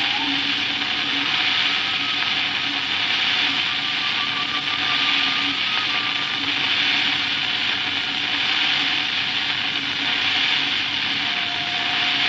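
A home-cut vinyl record, cut on a Gakken toy record cutter, playing back a violin improvisation at 33 rpm: heavy, steady surface hiss with a few faint long violin notes coming and going underneath.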